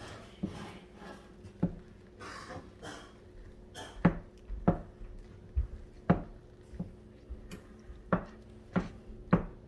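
A stirring utensil knocking against a pot of melting marshmallows and butter as it is stirred: sharp knocks, often in pairs, every second or two.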